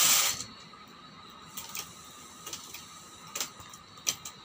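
Domestic knitting machine carriage sliding across the metal needle bed, its sweep ending just after the start. Then come a few light clicks of metal transfer tools against the latch needles.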